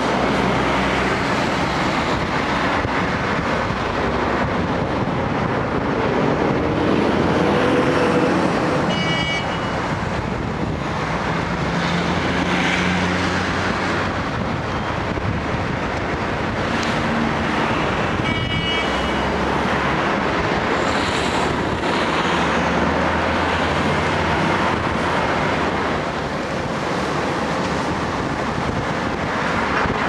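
Diesel engines of asphalt paving machinery (paver, tipper truck, tandem rollers) running steadily, their pitch rising and falling as the machines work. Two brief high chirps cut in, once about nine seconds in and again near the middle.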